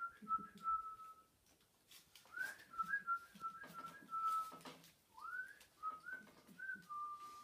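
A person whistling in three runs of short notes, each run opening with an upward swoop and then clipped level notes. Puppies' claws click and patter faintly on a tiled floor underneath.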